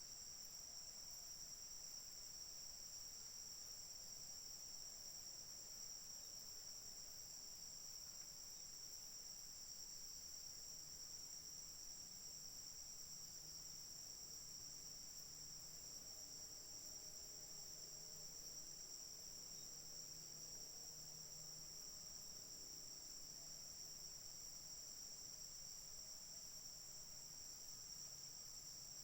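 Faint, steady high-pitched chorus of insects, an unbroken trill that holds level throughout.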